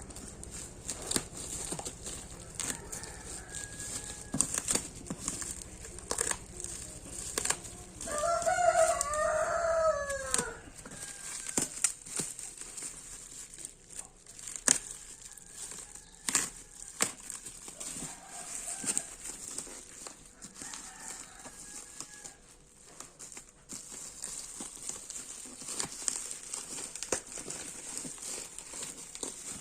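Scattered clicks and crinkles of a toy parcel being handled and opened. Once, about eight seconds in, a rooster crows, the loudest sound here, its call falling at the end.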